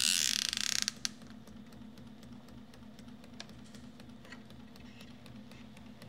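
IBM Selectric III typewriter's mechanism and electric motor running. A brief loud mechanical rattle comes in the first second, then the motor hums steadily with faint ticking from the gummed-up mechanism.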